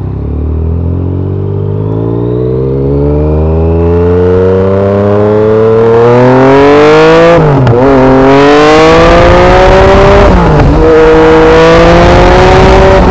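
Yamaha MT-09's 847 cc inline-three with an SC Project aftermarket exhaust accelerating hard through the gears: the revs climb steadily, drop briefly at two upshifts about halfway through and again later, then keep rising. Wind noise builds as speed rises.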